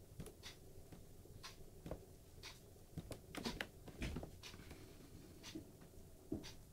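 Faint, irregular small clicks and taps, about one or two a second, with a few close together a little past the middle.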